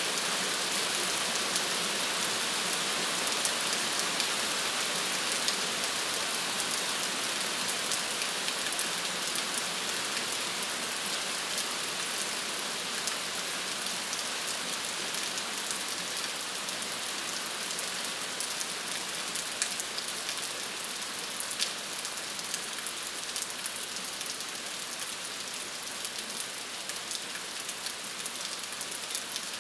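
Steady rain falling on a surface, an even hiss full of fine, close drop patters, easing very slightly in loudness.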